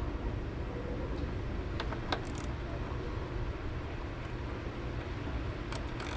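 A few light clicks from hand tools on the car battery and its terminal hardware, over a steady low rumble.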